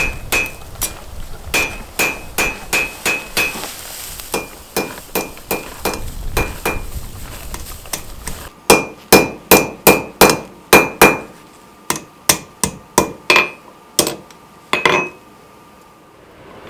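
Rounding hammer striking steel bar stock on an anvil, a steady series of blows about three a second, each with a short metallic ring. The first half holds lighter blows. A run of heavier blows comes about halfway through, then a few spaced strikes, and the hammering stops shortly before the end.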